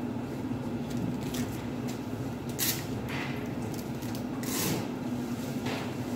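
Plastic water bottle being handled and its cap twisted open, giving a few short hissy crackles over a steady low hum.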